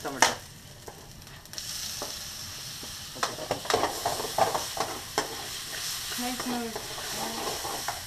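Chopped onion with ginger-garlic frying in sunflower oil in a metal kadai, sizzling steadily, while a metal utensil knocks and scrapes against the pan as it is stirred. There is a sharp knock right at the start, and the sizzle grows louder about a second and a half in.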